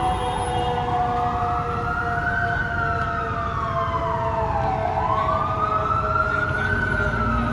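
Fire truck siren wailing, its pitch rising and falling slowly about twice, over a steady lower tone and a low rumble.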